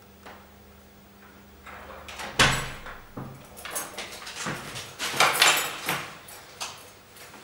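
Front door being unlocked and opened: a loud clunk about two and a half seconds in, then a run of clicks, knocks and rustling.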